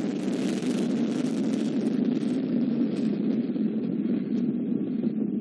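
Vega rocket's P80 solid-fuel first-stage motor firing just after liftoff: a steady deep rumbling noise whose upper hiss gradually thins as the rocket climbs away.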